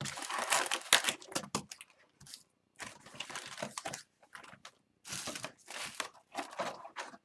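Plastic and foil wrapping on a sealed box of Upper Deck hockey cards crinkling and tearing as it is opened by hand, in irregular bursts of rustling.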